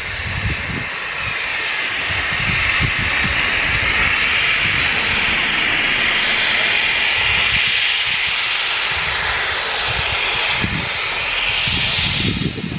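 Steam locomotive blowing off steam at its safety valves: a loud, steady hiss that builds at the start and cuts off near the end, with low rumbling gusts underneath.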